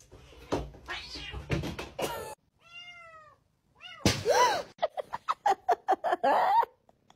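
Domestic cats meowing: a few short calls, then a loud meow about four seconds in, followed by a quick run of short repeated cries.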